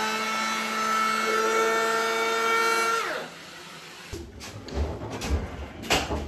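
Electric power tool motor running with a steady whine, its pitch shifting slightly with the trigger, then released about three seconds in and spinning down. Irregular knocks and clatter of handling follow.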